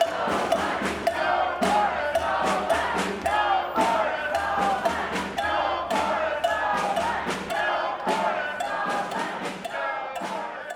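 A group of voices singing together in unison, over frequent sharp percussion hits, slowly fading out toward the end.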